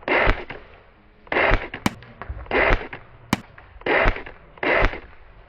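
Airsoft electric rifle firing five short bursts, each about a third of a second long and about a second apart, with two sharp single cracks in between.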